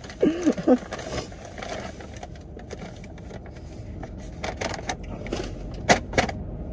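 Paper fast-food bag crinkling and rustling as a hand presses and slaps it down on someone's head, a few sharper crackles near the end, over a low steady rumble. A short vocal sound comes just after the start.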